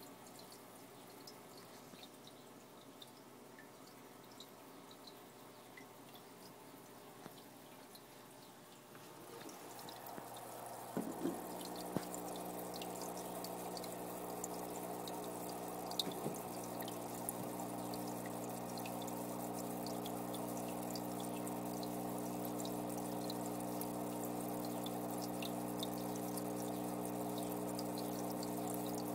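Aquarium water dripping and trickling with many small ticks and splashes. About ten seconds in it grows louder and a steady hum joins it.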